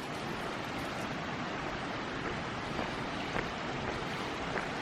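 Steady rush of running water, with two faint clicks near the end.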